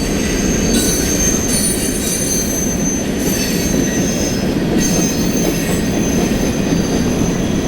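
Railway cars rolling past close by: a steady heavy rumble of wheels on rail, with high-pitched wheel squeal that comes and goes.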